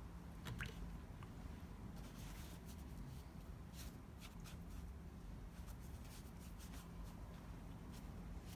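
Faint scratching and light taps of a watercolour brush working paint, a few soft clicks scattered through, over a low steady hum.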